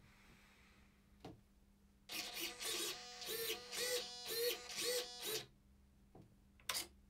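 Small RC servos whirring in short buzzy bursts, about two a second for some three seconds, each rising and falling in pitch as they drive the wing's ailerons and flaps back and forth.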